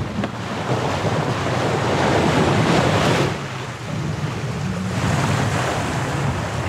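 Wind buffeting the microphone over the rush of water past the hull of a sailboat under sail, with no engine running. The noise drops briefly a little over three seconds in.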